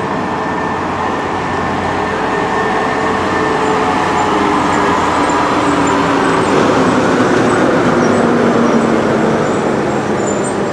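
Heavy-haul semi truck's diesel engine running as it pulls a loaded multi-axle lowboy trailer slowly past close by, with tyre and road noise. It is steady, growing a little louder midway and easing slightly near the end.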